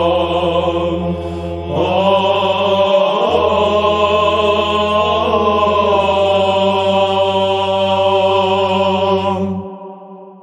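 Orthodox Byzantine-style chant: a man's voice holds and ornaments a long wordless melisma over a steady low drone (ison). It stops about nine and a half seconds in and dies away in reverberation.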